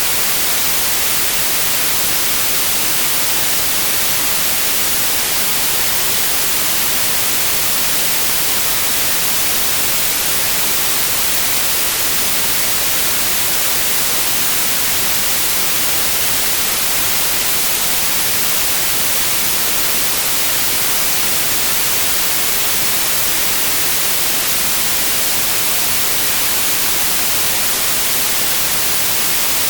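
Steady white noise: an even, unchanging hiss spread across the whole range and strongest in the highs, with no events.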